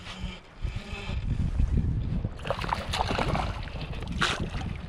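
River water sloshing and splashing around a hooked brown trout being played in close to the landing net, over a low rumble of wind on the microphone. The splashing picks up about halfway through, with one sharp splash near the end.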